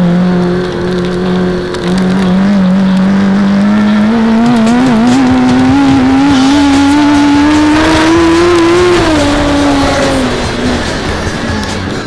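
Racing dirt-track sidecar engine at full throttle, heard from on board: the note holds, drops briefly about a second and a half in, then climbs steadily as the outfit accelerates down the straight. About nine seconds in the throttle is shut and the pitch falls.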